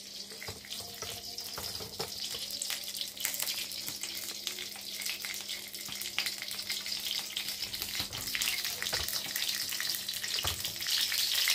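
Cooking oil heating in a wok on a gas stove, crackling and sizzling, growing louder toward the end, with a faint low hum underneath.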